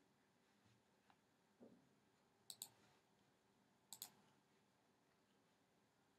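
Faint computer mouse clicks: two clicks about a second and a half apart, each a quick press and release of the button.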